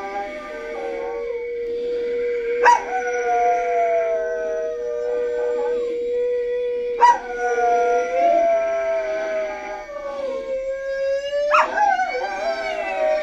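Dog howling in long, drawn-out notes. A new howl breaks in with a sharp yelping rise about every four to five seconds. A second steady held tone lies beneath the howls.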